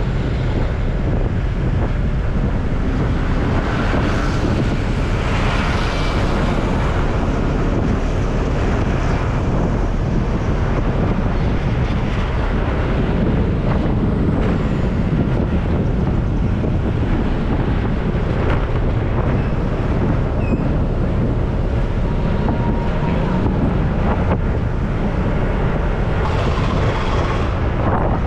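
Wind buffeting the microphone of a GoPro on a moving scooter, a steady low rumble with road and traffic noise underneath.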